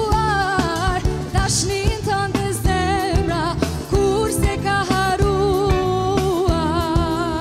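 A woman singing a slow, ornamented melody with wavering held notes into a microphone, backed by a live band of keyboard, drums and guitars.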